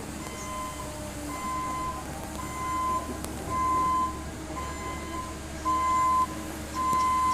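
Excavator's travel alarm beeping about once a second, seven beeps in a row, over the machine's steady low engine hum.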